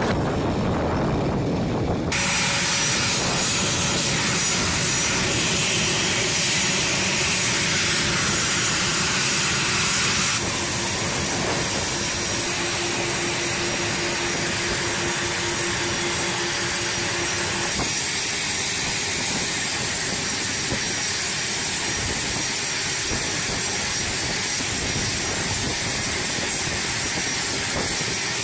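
A-10 Thunderbolt II's General Electric TF34 turbofan engines running on the ground: a steady loud hiss with faint whining tones, its character changing abruptly a few times.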